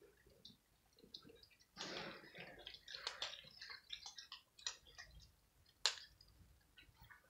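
Cats crunching dry kibble: a faint, irregular patter of small crisp crunches and clicks, with one sharper click about six seconds in.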